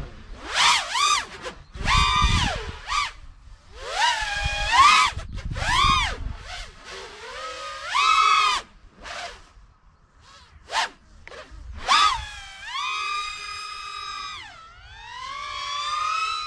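A 5-inch FPV racing quadcopter's Xnova 2204 2300 kV brushless motors on HQProp 5.1x2.5x3 three-blade props whine, the pitch swooping up and down with short punches of throttle separated by quieter gaps. Over the last few seconds the whine is held longer, dips, then climbs again.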